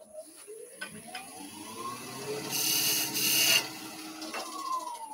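Woodturning lathe spinning up with a rising whine, a short light cut of a turning tool on the spinning wooden jam-chuck spigot as the loudest part, then the lathe winding down with a falling whine near the end.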